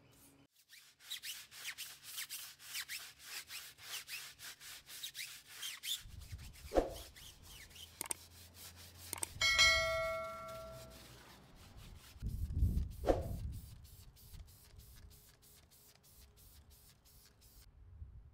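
Handheld detailing brush scrubbing a foam-covered car tyre and alloy wheel: quick rhythmic rubbing strokes, about four or five a second. Near the middle a short metallic ding rings out, and a few dull knocks come and go.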